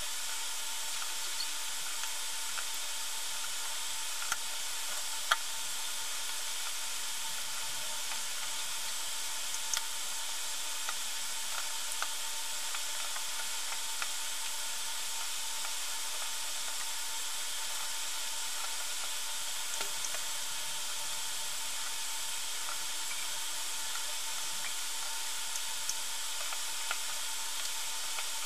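Steady hiss of background recording noise with a faint constant hum-like tone, broken by a few faint sharp clicks, the clearest about four and five seconds in.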